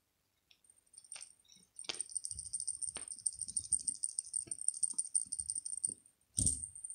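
Small bell inside a fluffy toy ball jingling fast and continuously while a cat bites and paws at it, over soft rustling. A few clicks come before it, and a single thump comes near the end.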